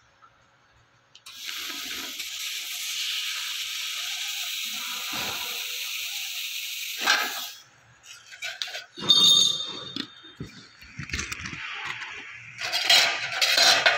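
Handheld laser cutting head of an AKQH-2000 3-in-1 laser cleaning, welding and cutting machine cutting thin metal sheet: a steady hiss of the gas jet and cut that starts about a second in and stops abruptly after about six seconds. Afterwards come irregular clinks and knocks of metal pieces being handled.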